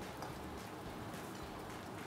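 Paneer cubes frying in a hot pan: a faint, steady sizzle with light scattered crackles.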